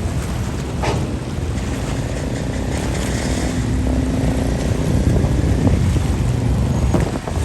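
River ferry's engine running steadily, with water and wind rushing over the microphone; a sharp knock about a second in and another near the end.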